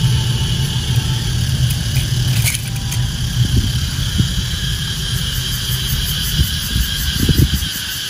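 A motor running steadily with a low hum, cutting out near the end, over a steady high-pitched whine.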